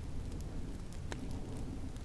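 Wood fire crackling in a fireplace, with scattered sharp pops, the strongest about a second in, over a steady low rumble of storm wind.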